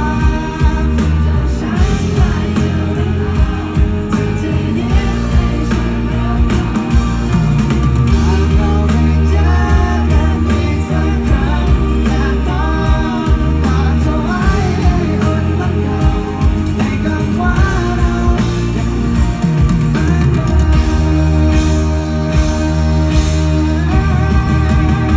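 Rock band playing live at full volume, with heavy bass and drums, guitars, and a sung melody over them.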